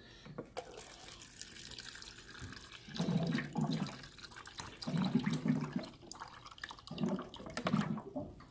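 Cold water running from a water cooler's dispenser tap into a plastic cup, a steady pour. A louder low hum comes and goes in short spells three times during the pour.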